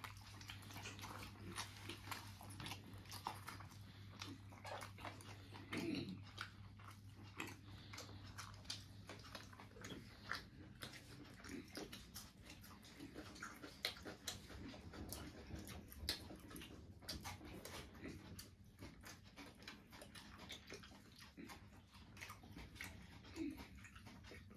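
A person eating a chicken leg piece in curry close to the microphone: biting and chewing with many small wet clicks and smacks. A low steady hum runs under the first ten seconds or so.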